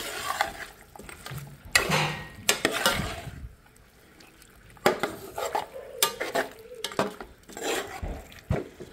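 Metal spoon stirring chicken pieces and tomato frying in a large metal pot, scraping and clinking against the pot's sides in separate strokes, with a light sizzle beneath.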